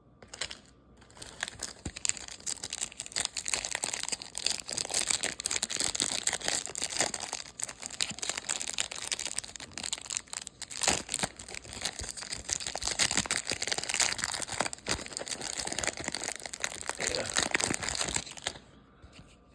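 Trading-card packaging and cards being handled, crinkling and rustling with many small clicks. It starts about a second in and stops near the end.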